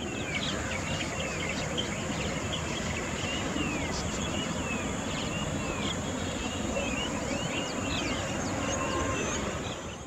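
Natural bird-and-insect ambience: many short, scattered chirps from small birds over a steady high-pitched insect drone and a constant background hiss.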